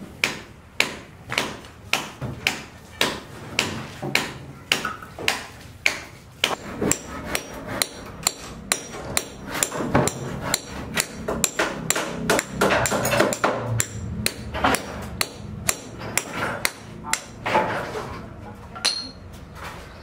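Hand hammer striking over and over at a steady pace, about one and a half to two blows a second. From about a third of the way in the blows grow denser, with extra knocks and clatter between them.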